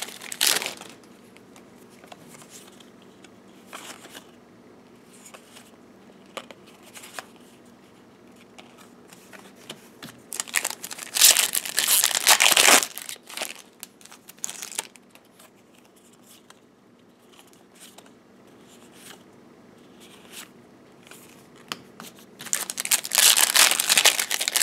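Foil trading-card booster pack wrappers crinkling and tearing open in two loud bursts, one about ten seconds in and one near the end, with scattered small clicks of handling between.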